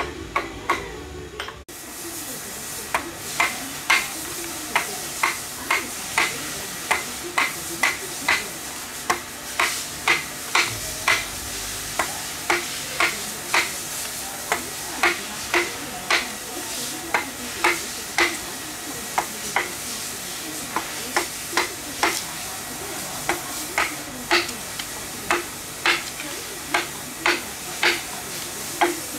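Mallet striking a wood-carving chisel into a large log, in steady blows about two a second with a few short pauses.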